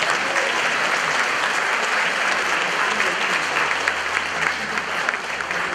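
Audience applauding steadily: many hands clapping at once in a large hall.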